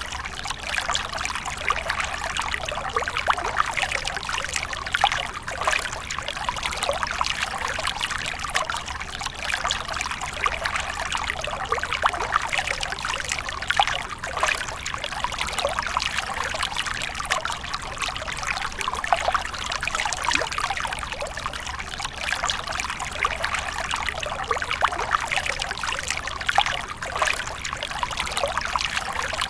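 Water splashing continuously: a dense, steady stream of many small splashes with no pauses.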